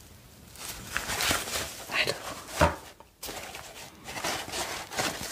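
Close-miked rustling and light tapping as a quilted fabric pouch and the pink packaging inside it are handled, with a soft thump about two and a half seconds in.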